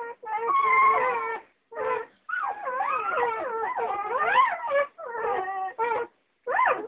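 Doberman puppies whining and howling: a run of high, wavering cries that rise and fall in pitch, broken by short pauses, sometimes more than one at once.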